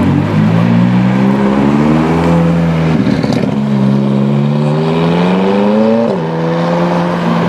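McLaren 570S twin-turbo V8 accelerating hard through the gears. The engine note climbs, breaks with a short rough patch and drops at an upshift about three seconds in, climbs again, and drops at a second upshift near the end.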